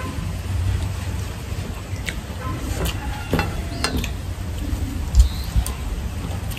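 Eating by hand from steel plates: scattered light clicks and taps of fingers, rice and curry against the metal, over a steady low rumble.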